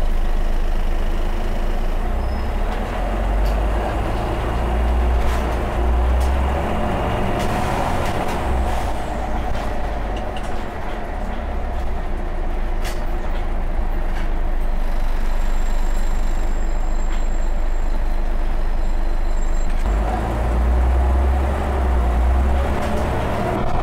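Scania OmniCity single-deck bus heard from inside the passenger saloon: a steady low diesel engine rumble that swells twice, with a few sharp clicks and rattles from the interior.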